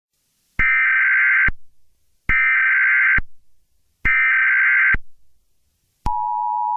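Emergency Alert System tones: three short bursts of SAME header data tones, each just under a second long and about a second apart. Near the end, the steady two-tone EAS attention signal begins.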